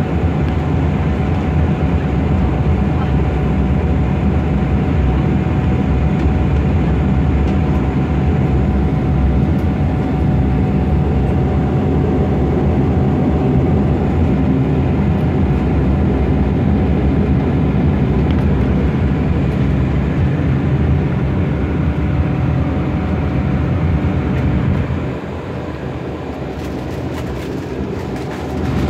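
Steady engine drone of an airliner heard from inside the passenger cabin while it taxis, a low hum with a thin steady whine over it. The level drops for a few seconds near the end, then comes back up.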